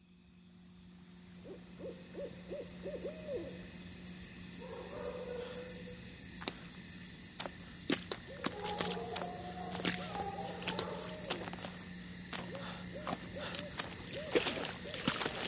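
Night forest ambience fading up: a steady high-pitched insect chorus with runs of repeated hooting calls like an owl's, and scattered sharp clicks and snaps from about six seconds in.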